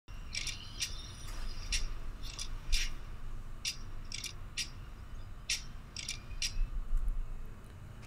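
Intro sound effect: about a dozen short, high-pitched chirps at an irregular pace, over a faint low hum.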